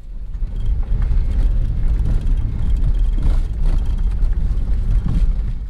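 Car driving slowly, a loud uneven low rumble of engine and tyres.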